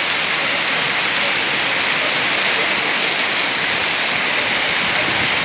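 Heavy rain falling on a paved street and pavement, a steady even hiss.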